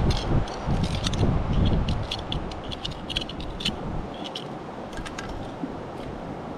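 Metal knife blade scraping and clicking against rock, worked down into a narrow crevice to pry out a coin; a run of short, irregular scrapes and ticks.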